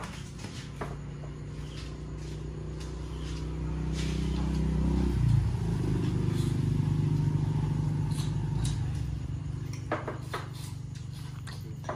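A vehicle's engine droning past, a low hum that builds over a few seconds, is loudest near the middle and fades away. Light clicks of chopsticks and bowls come and go around it.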